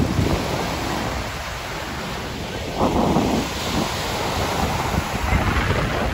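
Ocean surf breaking on a sandy beach, with wind buffeting the microphone. The surf grows louder about three seconds in as a wave comes in.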